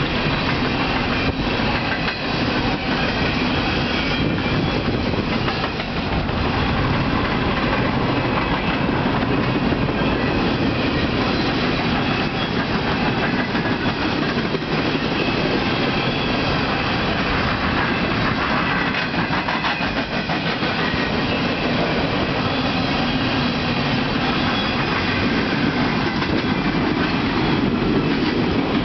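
Empty freight coal cars rolling past at speed, a steady loud rumble and clatter of steel wheels on the rails with some clickety-clack over the joints.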